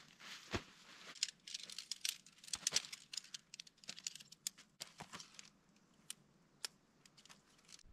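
Tent gear being unpacked and handled: fabric rustling and crinkling with sharp clicks and rattles, busiest in the first few seconds, then a few scattered clicks.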